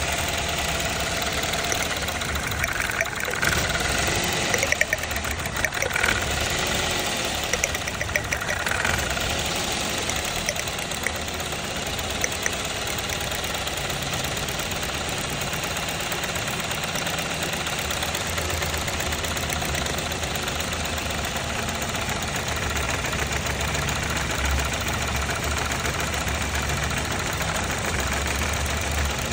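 Car engine idling steadily, with a cluster of short clicks and knocks between about three and nine seconds in.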